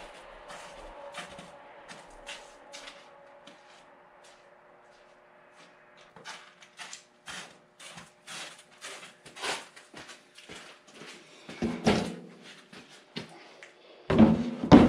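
Knocks and clatters from the heavy steel husk of a Belsaw sawmill being handled and moved, with heavier thumps about twelve seconds in and again near the end. A faint steady hum fades out in the first few seconds.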